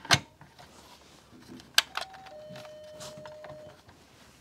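Plastic clicks of System Sensor smoke detector heads being twisted and locked onto their mounting bases: one sharp click at the start and another a little under two seconds in. A faint steady tone sounds for about a second and a half in the middle.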